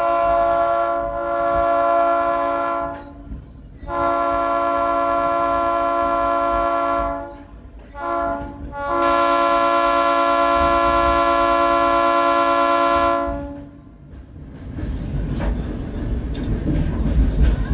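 Train horn sounding a chord of several notes in the grade-crossing pattern: two long blasts, a short one, and a final long one. It then gives way to the low rumble of the moving train.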